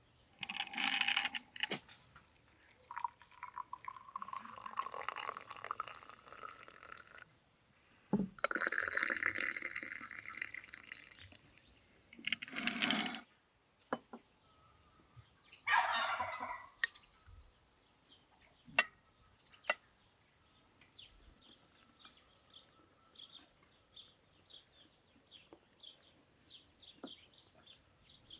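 Tea being poured into small glass tea glasses in several pours, with clinks of spoons and glass on saucers. Faint bird chirps repeat near the end.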